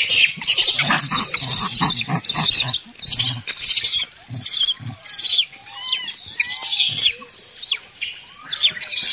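Rhesus macaques shrieking and squealing in repeated bursts as they squabble over food, loudest in the first few seconds, with shorter calls later.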